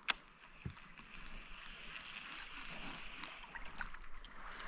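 Water trickling and lapping around a kayak, with a sharp click just after the start and a soft low knock a little later.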